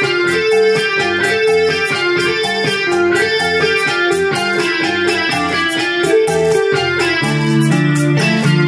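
Electronic keyboard played by hand, a cha-cha-cha tune over a steady drum beat; about seven seconds in the low notes change to longer held ones.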